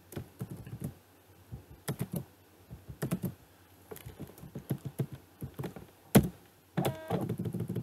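Typing on a computer keyboard: irregular key clicks, with one sharper, louder key strike about six seconds in.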